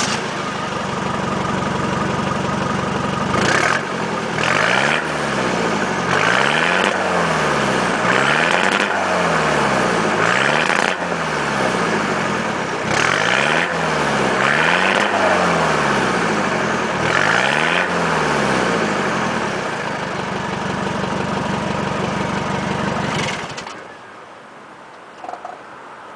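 Nissan Terrano II engine, freshly fitted with a new exhaust note, rumbling at idle and then revved up and down about every two seconds, with sharp pops coming from the exhaust. It settles back to a steady idle and is switched off near the end.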